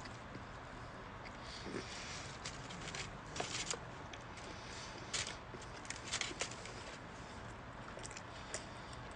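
A person chewing a bite of breakfast sandwich close to the microphone: scattered short, wet mouth clicks and smacks over a faint steady hum.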